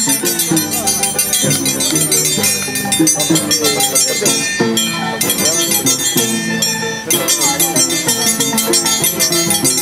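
Andean violin and harp playing a scissors-dance (danza de tijeras) tune, the despedida or closing section, over the rapid metallic clinking of the dancers' scissors blades.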